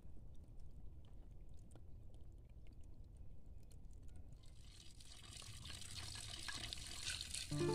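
Water boiling in a miniature clay pot: faint bubbling and hissing that grows louder about halfway through. Music comes in right at the end.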